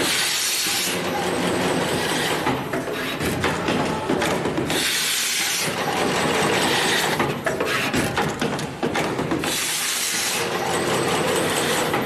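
Automatic 64-pin IDC cable connector crimping machine cycling. Short bursts of air hiss come from its pneumatic actions about every two and a half seconds, over a steady run of fast mechanical clicks and clatter.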